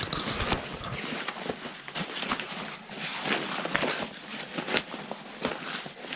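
Rustling and scraping of backpack fabric and straps being handled, with scattered light clicks and knocks as a carbon fibre frame stay is worked into the pack.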